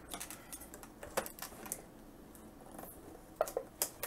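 Light, scattered plastic clicks and ticks as a clear plastic clamshell package is handled and scissors are worked at the tape sealing it, with a few sharper snaps near the end.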